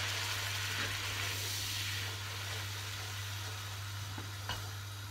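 Butter-and-flour roux sizzling gently in a pan as it is stirred with a wooden spoon, a steady soft hiss over a constant low hum.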